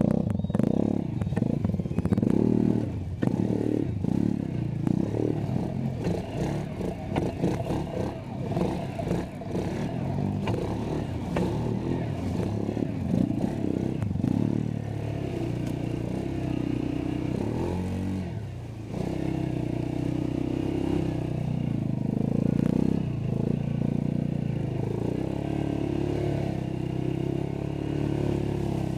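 ATV engine running under load and revving up and down repeatedly, its pitch rising and falling throughout, with a brief drop and climb back about two-thirds of the way through.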